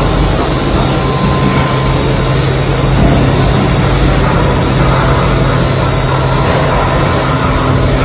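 Rotary dairy shed's milking plant running: a steady loud mechanical drone with a low hum and a thin, constant high whine. This is the noise reported in the shed, which the farmer guesses comes from the plant having been started on the wash setting instead of milk.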